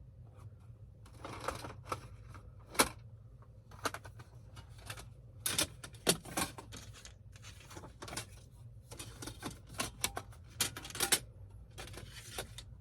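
Irregular clicking and tapping, as of typing on a computer keyboard and clicking a mouse, with some short rustles in between, over a steady low hum.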